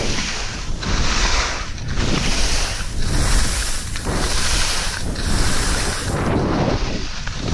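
Skis sliding over snow in a walking stride, a swish about once a second, with wind buffeting the microphone throughout.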